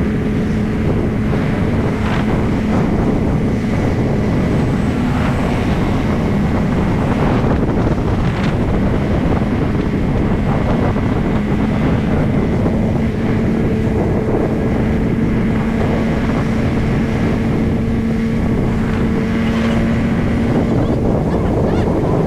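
Wind rushing over the microphone of a moving motorcycle, with the bike's engine humming steadily underneath at a constant cruising speed.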